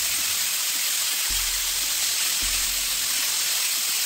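Steam hissing steadily out of a Prestige aluminium pressure cooker's whistle weight as it vents: the cooker has come up to pressure.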